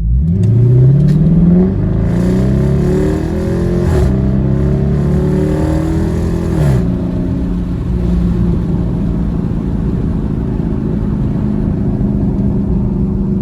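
Dodge Charger Daytona's 5.7-litre HEMI V8 exhaust through Dynomax Race Bullet resonators under hard acceleration. The pitch climbs, drops back at upshifts about two, four and seven seconds in, then settles into a steady cruising drone.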